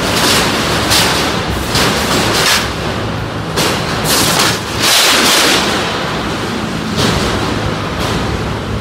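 Combat robots clashing in the arena: a string of sudden loud bangs and rushing bursts, the longest about five seconds in, over a steady rumble.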